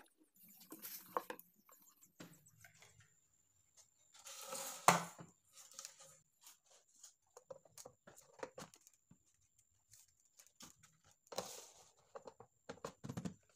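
Handling sounds from an oval speaker driver and a PVC speaker tube being fitted and set on a table: scattered taps, rustles and knocks, the loudest knock about five seconds in. A faint high-pitched steady tone runs through the second half.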